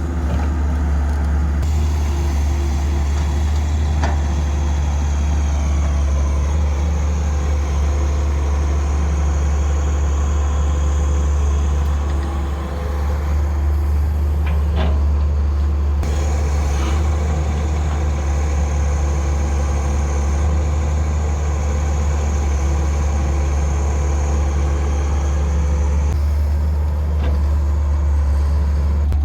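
Heavy diesel machinery running steadily with a deep engine rumble, broken by a couple of short knocks.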